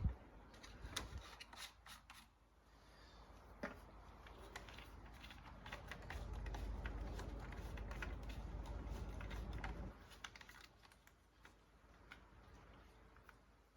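Scattered light clicks and taps of small parts being handled, with a low rumble of handling noise for a few seconds in the middle.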